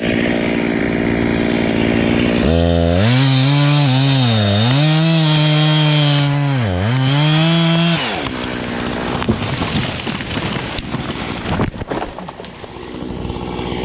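Jonsered chainsaw revving at full throttle, then cutting into a tree from about two and a half seconds in, its engine pitch dropping under load and sagging twice as it bogs in the cut. At about eight seconds it is pulled out and revs high again briefly, followed by scattered crackling and clicks.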